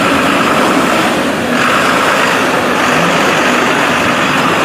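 Mack concrete mixer truck's diesel engine running as the truck moves along the street, a loud, steady wash of engine and road noise.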